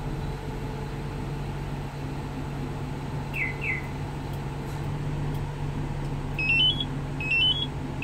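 Isuzu 3.5-ton truck's diesel engine idling steadily after a remote start. Two short falling chirps come about three and a half seconds in. From about six and a half seconds, the remote-start alarm sounds a repeating beep of four quickly rising notes, about once every three-quarters of a second.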